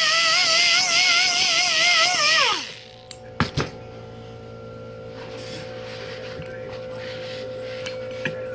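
Pneumatic angle die grinder with a scrubber pad whining against the cylinder head's gasket face, its pitch wavering as the pad is pressed. About two and a half seconds in it is released and spins down with a falling whine. Two knocks follow as it is set down, then a faint steady hum.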